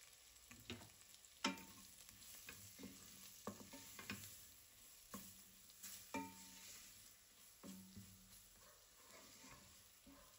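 Wooden spoon stirring onions, curry leaves and spices frying in oil in a stainless steel pot: a faint sizzle under irregular knocks of the spoon against the pot, each ringing briefly, the loudest about a second and a half in.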